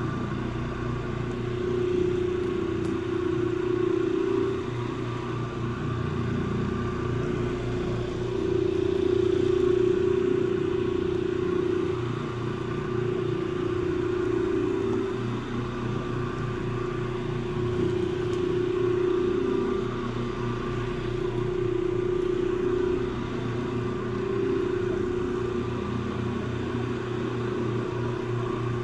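Rotary floor machine running steadily, its pad spinning and scrubbing across carpet. The hum swells and eases every few seconds as the machine is swung back and forth.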